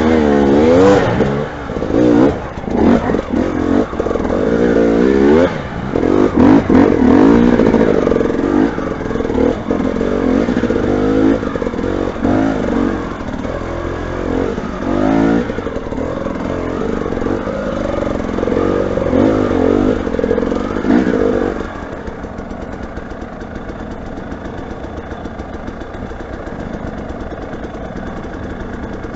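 Motorcycle engine revved up and down again and again under load, then dropping to a steady idle about three-quarters of the way through.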